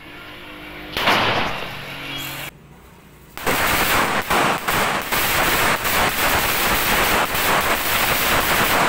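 A string of firecrackers going off in a rapid, continuous rattle of bangs from about three and a half seconds in. Before it, about a second in, there is a loud rushing hiss and then a brief lull.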